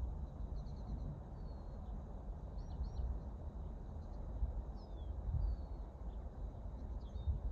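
Wind buffeting the microphone with an uneven low rumble, while small birds chirp and whistle faintly in short calls several times.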